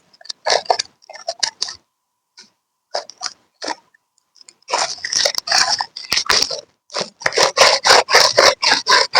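Glitter slime being squished and pressed by hand, giving bursts of crackling, clicking pops as air pockets burst. The crackles come in short clusters with pauses, then run almost continuously from about halfway through.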